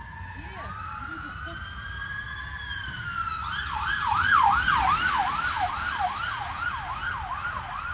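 Police car siren: a slow rising and falling wail, switching about three and a half seconds in to a fast yelp of about three sweeps a second, loudest soon after the switch.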